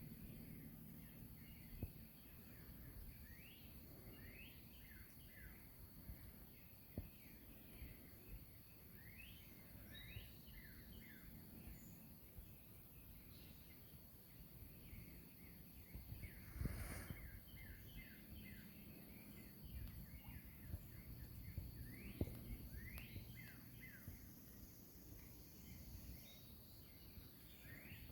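Faint birdsong: many short, quick downward-sweeping chirps repeating through the whole stretch over a steady high hiss, with one brief louder noise about seventeen seconds in.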